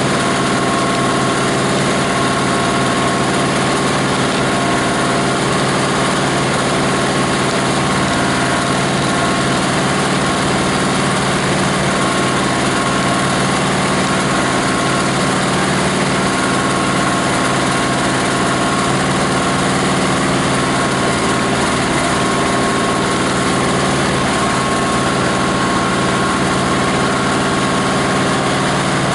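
The grinder's 18 HP diesel engine running steadily and loudly, with a constant hum and no change in speed.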